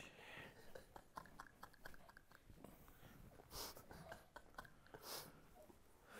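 Near silence in a small room: faint rustles and small clicks of a person moving about without speaking, with two soft breathy puffs in the second half.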